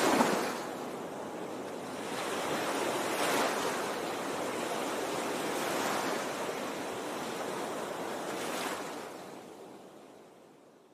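Ocean surf: waves washing in and drawing back, swelling about every three seconds and fading away near the end.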